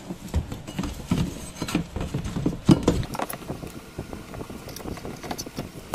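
Irregular knocks, clicks and rattles as a washing machine's wash motor is lowered and seated into the machine's plastic body, wires brushing against it; the loudest knock comes a little under three seconds in.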